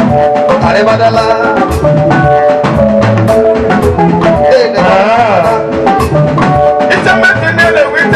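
Bongo music with a steady drum and percussion beat under layered melody.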